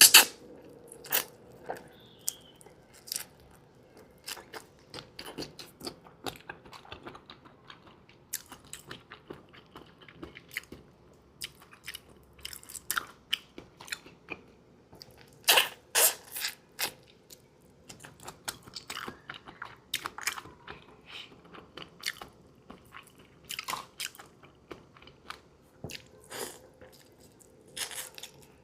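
Close-up eating sounds: biting into and chewing raw marinated shrimp, with irregular crunching and clicking as the shells are bitten through, and louder crunches at the start, about halfway through and near the end.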